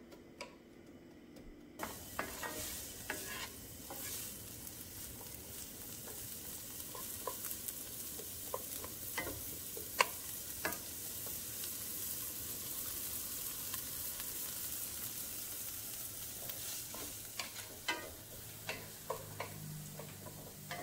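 Chopped onions sizzling as they sauté in a frying pan, with a wooden spatula scraping and tapping the pan as they are stirred. The sizzle comes up about two seconds in, and one tap near the middle is clearly the loudest.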